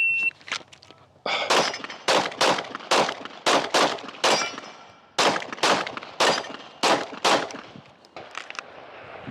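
Glock 45 9mm pistol firing about a dozen rapid shots in singles and quick pairs during a target-transition drill, with brief ringing from hits on steel. It is preceded by the end of a shot timer's start beep.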